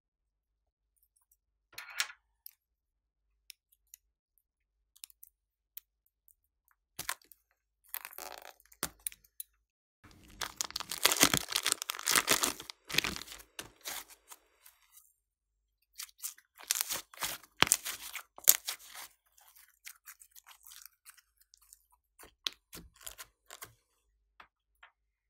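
A thin plastic piping bag crinkling and crackling in the hands as soft clay is worked in it and squeezed out. It comes in irregular bursts, the longest about ten seconds in and another about six seconds later, with small ticks between.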